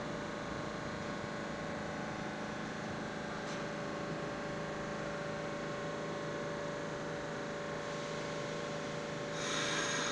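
A stopped R46 subway train humming steadily at the platform, with several steady tones from its running equipment. A little before the end a louder hiss comes in suddenly.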